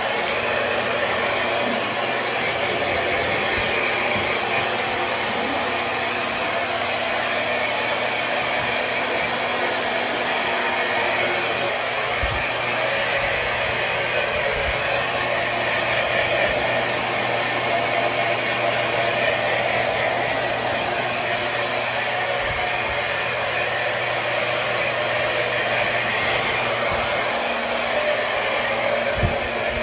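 Hair dryer blowing steadily, a constant rush of air over a motor hum, as the puppy is dried after her bath.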